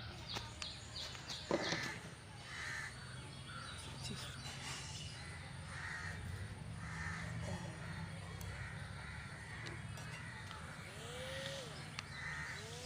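Crows cawing repeatedly in the background, a steady run of short calls about every half second, over a faint low hum.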